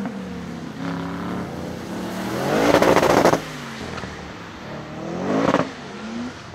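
BMW E36 drift car's engine revving up and down as the car slides. The loudest rev comes about two and a half seconds in with a rattling edge, and a shorter one comes about five seconds in.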